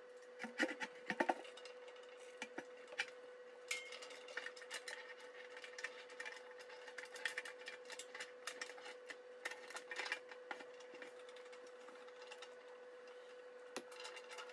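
Metal clinks, clicks and scrapes of the wing-nut clamp bolts on a portable pressure sterilizer being swung up and screwed down to seal the lid, with a few louder knocks about a second in. A steady hum sounds under it.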